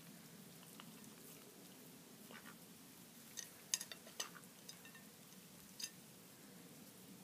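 A duck's bill clicking and tapping against a plate as it feeds: a handful of short, sharp clicks in the middle, over faint steady background noise.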